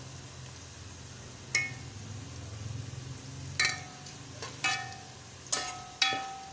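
Sliced bitter gourd frying in ghee in a metal pot while being stirred with a metal spoon: about five sharp, ringing clinks of the spoon against the pot over a faint sizzle and a steady low hum.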